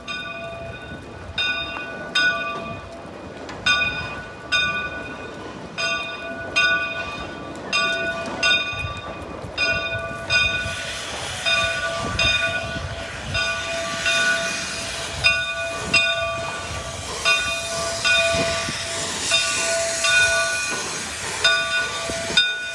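Steam locomotive's bell ringing steadily, about one stroke a second, as the train moves through the station. From about ten seconds in, a hiss of steam and exhaust grows under the bell as the locomotive draws near.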